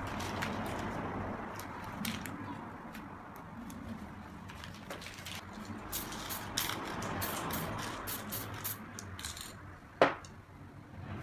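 Aerosol spray paint can hissing in short spurts, with crinkling of crumpled paper or plastic, and a sharp knock about ten seconds in as a metal spray can is set down.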